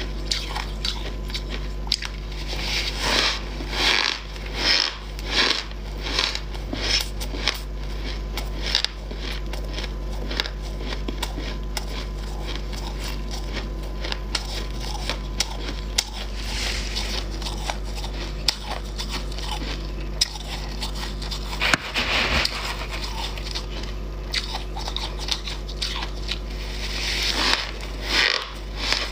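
Close-miked crunching and chewing of freezer-frost ice chunks: a rapid run of crisp crunches in the first half, sparser crackling afterwards, and fresh bursts of biting about two-thirds of the way in and near the end.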